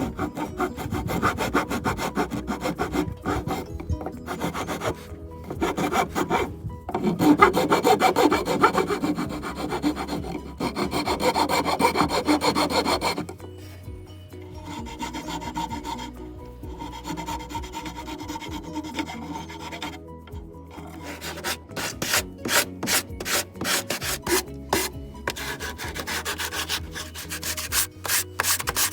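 Wood being abraded by hand, back-and-forth rubbing strokes of an abrasive tool on a wooden board. The strokes ease off in the middle, then come crisp and even at about two or three a second near the end.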